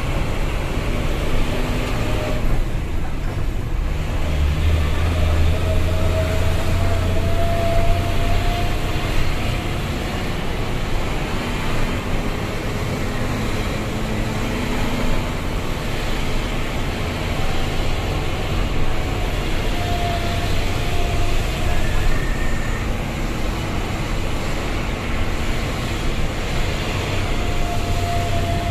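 Fuso Fighter dump truck's diesel engine running under way, heard from inside the cab: a steady low rumble with road noise, and a faint whine that rises in pitch a few times.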